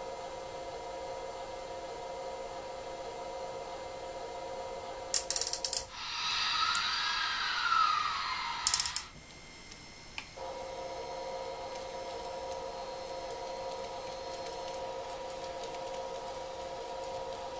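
Homemade EMU700 train sound module playing back electric-train sounds: a steady hum of several fixed tones. About five seconds in come a few sharp clicks, then about three seconds of hiss with a tone that rises and falls, another click, a short break, and the steady hum resumes.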